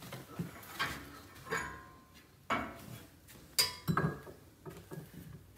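Kitchenware being handled: about five separate clinks and knocks of cups and utensils against the counter and cookware, one ringing briefly.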